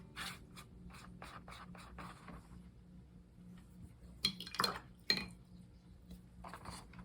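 Watercolour brush strokes scratching across paper, a quick run of short strokes in the first two seconds, then two louder clinks and scrapes about four and five seconds in, like a brush knocked against a palette or glass.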